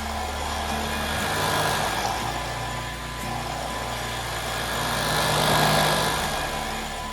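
VOSFEEL Z11 cordless stick vacuum running, a steady motor whine and rush of suction that swells and eases, under background music with a low stepped bass line.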